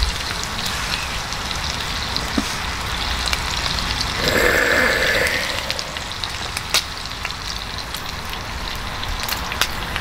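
Thin-sliced pork belly sizzling on a hot round griddle, a steady hiss with small scattered pops of spitting fat. A brief louder sound comes about four seconds in.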